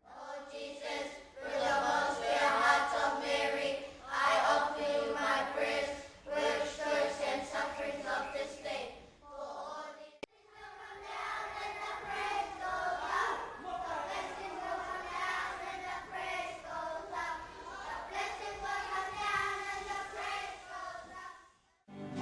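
A choir of many voices singing together, with a brief cut to silence about ten seconds in before the singing picks up again.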